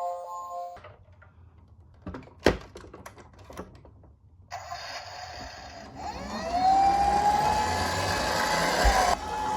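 Toy police car: a few sharp clicks, then from about halfway its small motor whirs while its siren glides up in pitch and holds.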